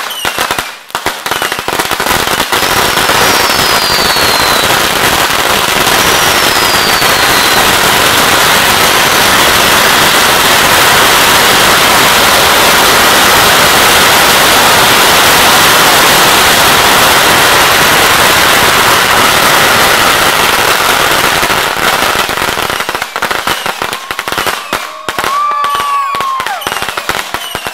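A 16,000-count string of firecrackers going off as one long, dense crackle of rapid bangs, with two short falling whistles early on. The crackle thins to scattered separate pops near the end as the string burns out.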